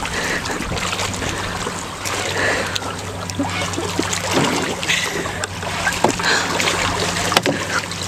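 Water splashing and lapping around a canoe, with scattered short splashes and knocks, over a steady low hum.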